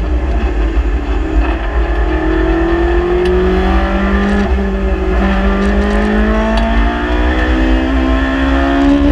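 Ferrari 458 Challenge race car's V8 engine heard from inside the cockpit, accelerating hard out of a corner, its pitch rising steadily through a long gear from about two seconds in.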